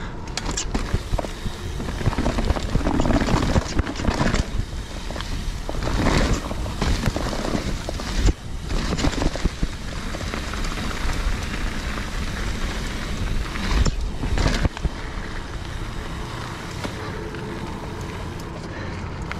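Trek Fuel EX full-suspension mountain bike ridden over dirt singletrack: steady tyre and wind noise with frequent knocks and rattles from the bike over bumps.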